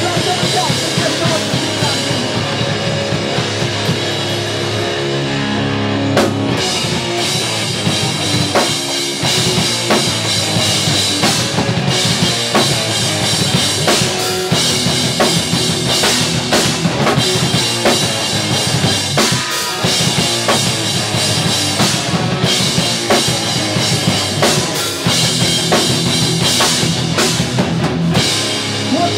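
Pop punk band playing live: electric guitars, bass and a drum kit. The sound gets fuller and brighter about six seconds in.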